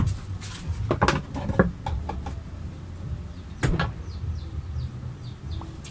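Several knocks and clicks of washing machine parts being handled and fitted during reassembly, over a steady low hum.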